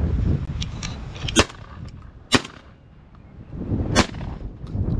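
Three shotgun shots from semi-automatic shotguns at pigeons coming in to decoys: two about a second apart, then a third near the end. A low wind rumble on the microphone fills the first second.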